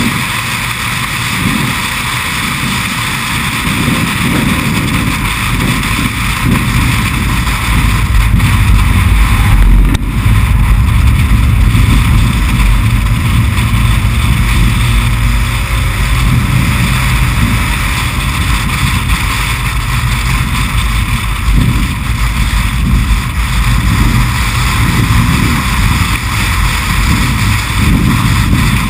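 A small race car running at speed on track: the engine's drone under heavy wind buffeting on the outside-mounted camera's microphone. It grows louder from about four seconds in and is loudest around ten seconds, then stays steady.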